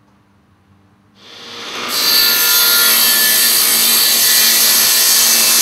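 Power saw cutting through a wooden board: a steady, loud cutting noise with a high blade whine that swells in about a second in and holds without any stroke rhythm.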